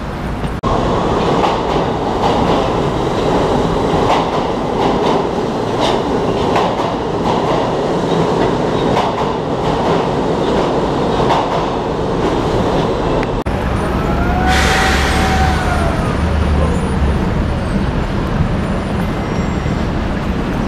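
New York City subway train running past a station platform: a steady rumble with the clatter of wheels over rail joints. About two-thirds of the way through, the sound changes to a deeper rumble with a brief hiss and a tone that rises and falls.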